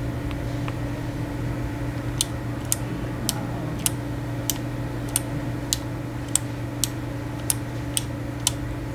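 Mechanical keyboard keys pressed slowly one at a time: a few faint ticks, then from about two seconds in a steady run of sharp, crisp clicks about every 0.6 seconds, over a steady low hum.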